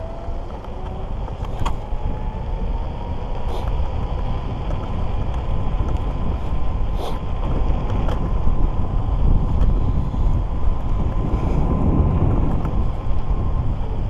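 A 48 V Speedway Mini 4 electric scooter's hub motor whines at speed. The whine rises in pitch over the first couple of seconds as the scooter speeds up, then holds steady and fades out near the end. Under it run heavy wind buffeting on the microphone and a low road rumble, with a few short clicks.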